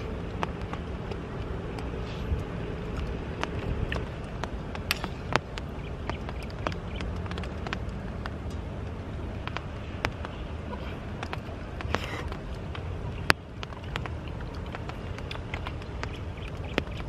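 Eating sounds: a spoon clicking and scraping on a plate, and mouth sounds of chewing, as scattered short clicks over a steady low outdoor background noise.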